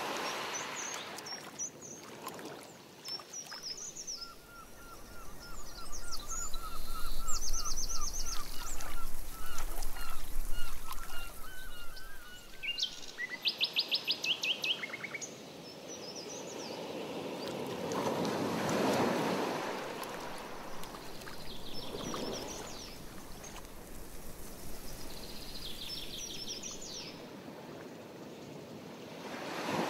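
Canoe paddle strokes swishing through lake water a few times, slowly. Several birds sing over them: a long series of evenly repeated notes through the first half, and quick high trills.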